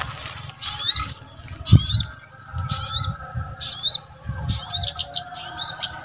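Recorded bird calls played through a speaker as a lure: a mix of agitated small-bird calls used to draw birds to lime sticks. Short high chirps repeat about once a second over a faint steady tone, with one low thump about two seconds in.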